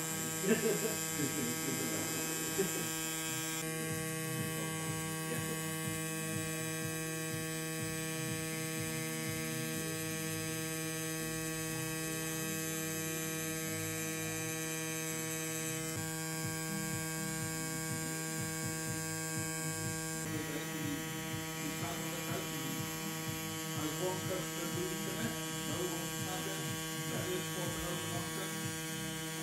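FK Irons Xion rotary pen tattoo machine running with a steady electric hum as the needle lines skin, with a couple of brief clicks in the first three seconds.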